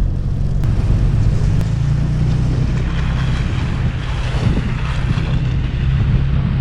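Toyota Tacoma pickup driving on a snowy road: a steady low engine hum with tyre and road noise.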